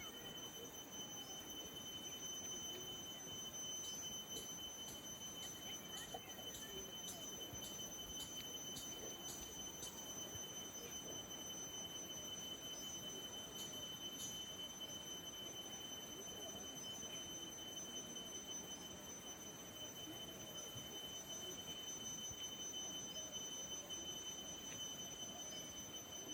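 Faint outdoor ambience: a steady high-pitched whine with a run of short chirps or ticks at about two a second in the first half, over a low background hush.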